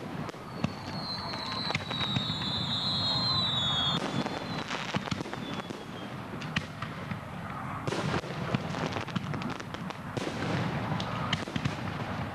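Fireworks display going off: a dense run of cracks and bangs, with a high whistle lasting a few seconds near the start.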